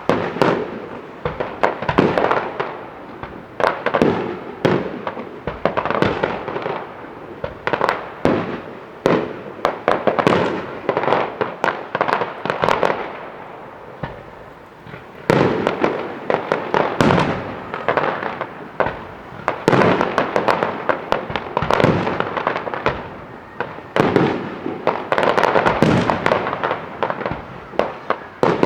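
Fireworks display: a rapid, irregular run of bangs and crackles. It thins out to a short lull about halfway through, then picks up densely again.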